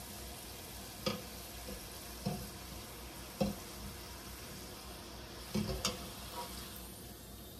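Samosas deep-frying in hot oil in a wok, a steady sizzle, with a wire spider strainer knocking against the wok about five times as they are turned.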